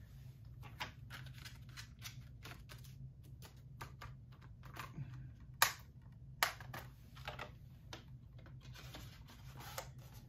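Plastic 4K Blu-ray case being handled and shut, a run of light clicks and rustles. A little past halfway there are two sharp snaps under a second apart.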